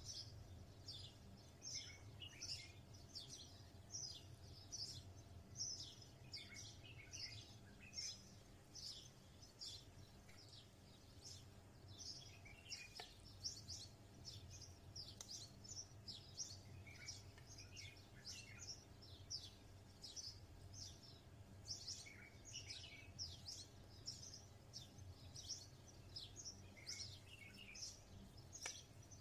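Faint, continuous chirping of small birds, several short high falling notes a second, over a low steady hum.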